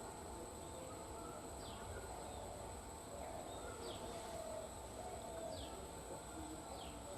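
Small birds calling, with short downward-sweeping high chirps about once a second over a lower busy chatter and a steady high-pitched tone.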